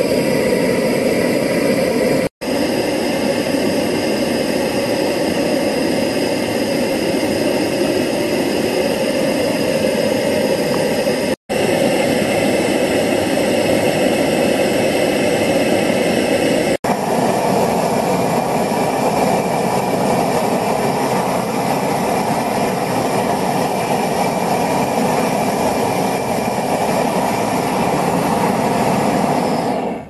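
Butane torch with a large burner tip firing into a paint-tin furnace to melt aluminium: a loud, steady roar of flame, broken by three abrupt cuts.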